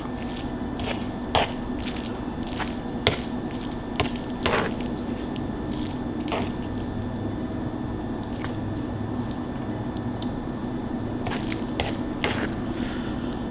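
Close-miked eating sounds: wet chewing and mouth smacks with scattered sharp clicks, the loudest a little over a second in, at about three seconds and at about four and a half seconds, over a steady low hum.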